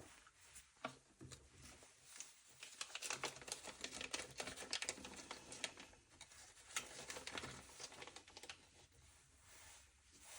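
Faint clicking and rattling of small parts and tools being handled while fitting the manifold to an engine, coming in two busy spells.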